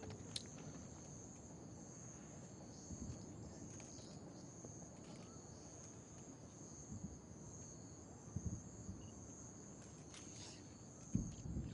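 Insects singing in a steady, continuous high-pitched chirr, faint, with a few dull low thumps about three, eight and eleven seconds in.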